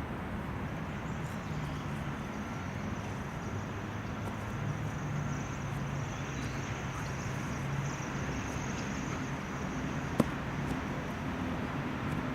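Steady outdoor background of distant road traffic, a continuous rumble with a faint low hum, and one sharp click near the end.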